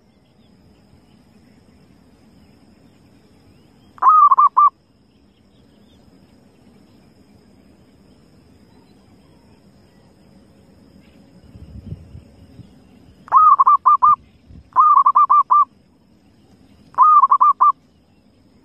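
Zebra dove (perkutut) cooing: four short phrases of rapid, quickly repeated notes, one about four seconds in and three close together near the end.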